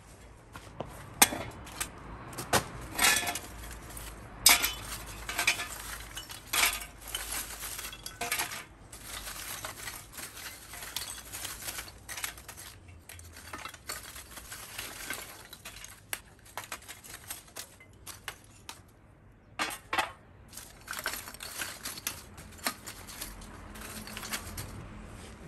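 Charcoal pieces clinking and clattering as they are dropped by hand into a metal chimney starter, in irregular handfuls, with a short lull about two-thirds of the way through.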